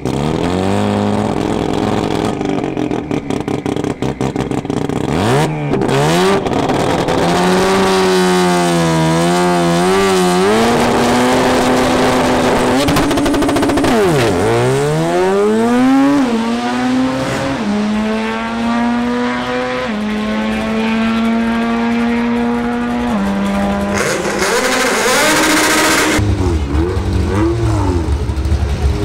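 Mazda RX-7 Turbo II drag car: its engine is held at high revs, wavering, while staging. About halfway in it launches, and the engine pitch climbs and then drops at each of three upshifts as it runs away down the strip. Near the end another car's engine takes over with a lower, deeper sound.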